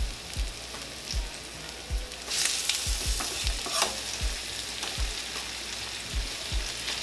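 Flour-dredged ribeye steaks frying in vegetable oil in a skillet: a steady light sizzle, lighter than wanted because the skillet is not quite hot enough. The sizzle swells loudly for about a second, a little past two seconds in, as a second steak goes into the oil. Soft low knocks sound now and then.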